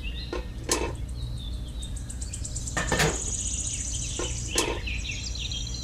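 A few light clicks and knocks as small tin toy buckets are picked up and handled, over a steady low background hum. Birds chirp near the end.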